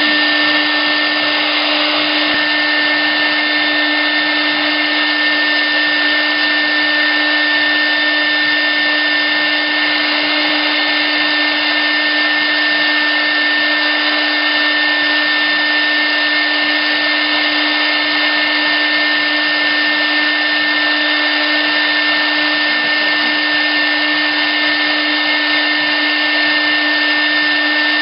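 Spindle of a CNC router milling acrylic sheet: a steady whine with a hiss of cutting over it, running without change.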